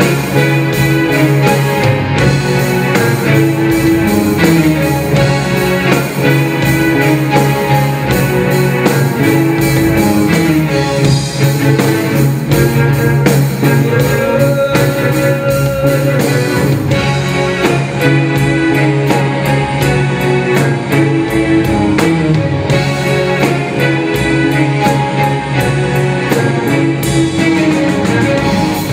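Live rock band playing electric guitar, electric bass and drum kit, with a harmonica played into the vocal microphone.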